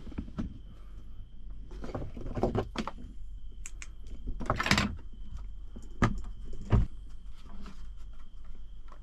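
Rustling, light knocks and clicks as things are handled and moved about inside a small wooden camper shell, with a heavier thump about two-thirds of the way through. A faint steady high tone runs underneath.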